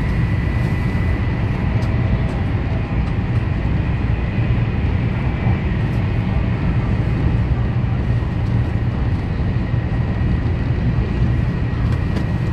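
Taiwan High Speed Rail 700T trainset heard from inside the passenger cabin at speed: a steady low rumble with a faint, thin, steady whine above it.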